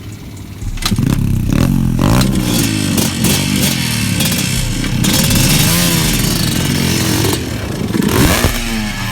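Small off-road vehicle engine catching about a second in after being kicked over, then revved up and down again and again with some mechanical clatter.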